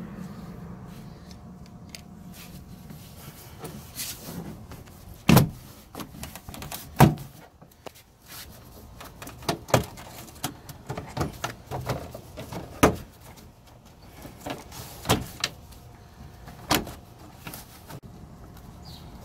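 A Mitsubishi rear door trim panel being pried off the door: a scattered series of sharp plastic snaps and knocks, the two loudest about five and seven seconds in.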